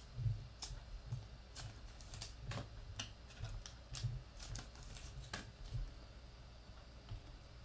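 Football trading cards being handled: cards slid off a stack and laid down on the table, making a run of irregular light clicks and flicks with soft bumps under them.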